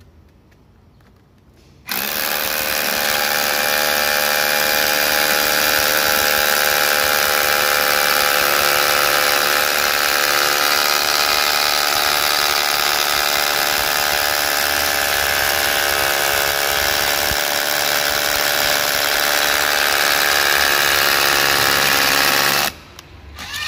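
Makita DHR171 18V cordless rotary hammer drilling into a concrete block, running steadily under load. It starts about two seconds in and stops abruptly near the end.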